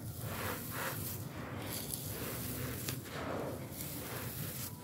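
Dry sand and fine crushed stone being pressed and crumbled by hand: gritty, crunchy scraping in a run of uneven strokes.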